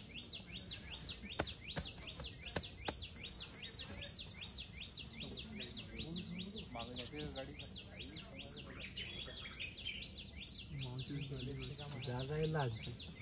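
A steady high insect drone with a rapid, even run of short falling chirps, about five a second, throughout. Faint low voices murmur briefly about halfway through and again near the end.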